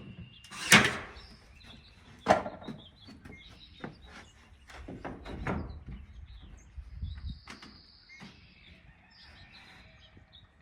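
Battery-powered nail gun driving nails into wooden battens on plywood siding: two sharp shots, the first about a second in and the second about a second and a half later, with lighter knocks of the boards being handled in between. Birds chirp faintly near the end.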